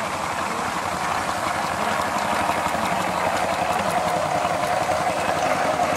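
Miniature steam traction engine running as it drives past, with a fast, steady beat from its exhaust that grows a little louder.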